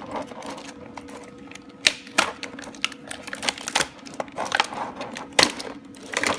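Small plastic Shopkins toy figures clicking and clattering as they are handled and spill out of their packaging: several sharp clicks among softer handling noise.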